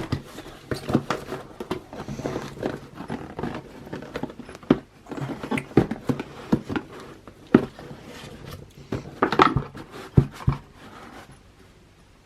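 A parcel being unpacked by hand: packaging rustling, with irregular knocks and clicks as items are handled and taken out, dying down near the end.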